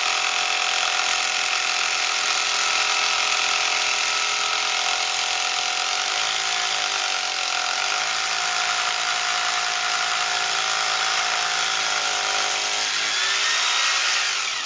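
Electric drill boring into a concrete foundation wall, its motor running steadily under load. The pitch sags briefly about six seconds in and again near the end as the bit bears down, then the drill stops just before the end.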